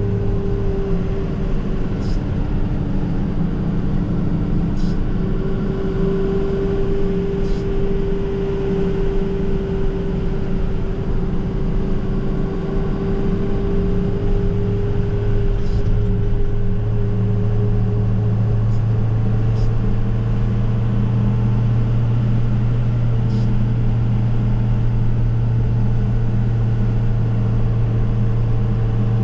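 Snowplow truck's engine droning steadily while driving, heard from inside the cab, its note rising slightly a little past halfway.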